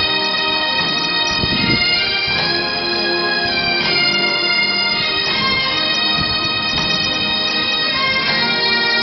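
Massed Great Highland bagpipes playing a tune over their steady drones.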